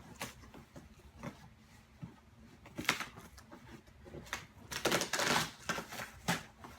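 Parts and packaging being pulled out of a cardboard box by hand: scattered taps and knocks, with a longer rustling scrape about five seconds in.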